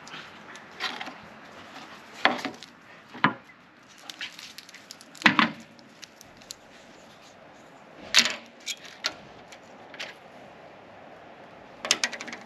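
Irregular, sharp clicks and knocks of objects being handled, scattered unevenly, with the loudest knock about five seconds in.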